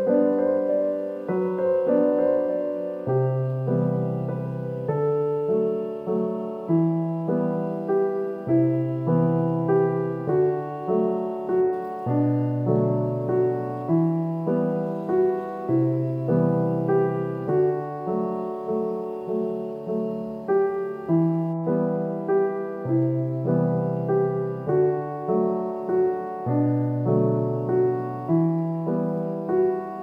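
Background piano music, slow and gentle, with an even pulse of low notes under the melody.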